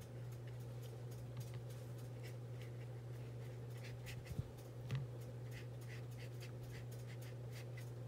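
A watercolour brush working paint across paper with faint, soft scratching strokes. A couple of light taps fall around the middle, and a steady low hum runs underneath.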